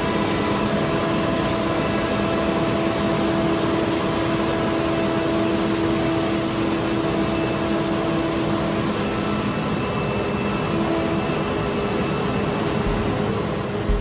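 Grizzly G1033X 20-inch spiral-head planer and its dust collector running steadily, with a steady hum and whine, while a thick walnut board feeds through the cutterhead.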